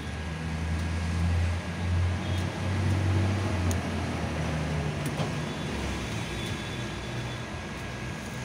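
Street traffic noise, with a low vehicle engine rumble that swells for the first four seconds and then eases into the steady hum of the road.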